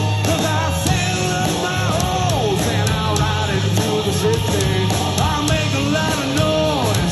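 Live country-rock band playing loud through stage speakers: electric guitar, bass and drums with a steady beat, and several voices singing along into microphones.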